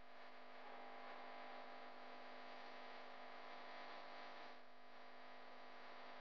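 Faint, steady electrical hum with hiss: the background noise of a recording with no narration.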